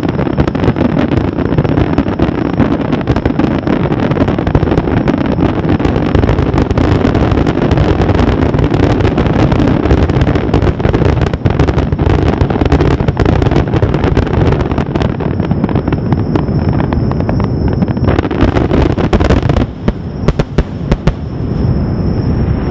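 Fireworks finale barrage: aerial shells bursting in rapid succession, merging into a continuous rumble packed with crackling. Near the end it thins into separate sharp bangs.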